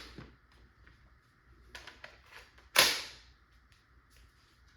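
Tippmann TiPX CO2-powered less-lethal pistol firing one round: a single sharp pop about three seconds in, preceded by a few faint handling clicks.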